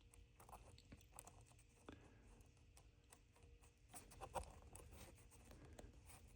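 Near silence, with a few faint small clicks and taps from handling small plastic parts.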